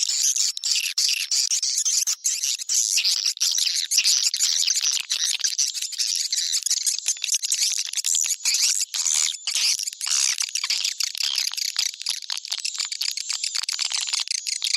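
Swiftlet lure call: a dense chorus of many rapid, overlapping high chirps and twitters from swiftlets, running on without a break. This is the kind of call played in swiftlet nesting houses to draw the birds in.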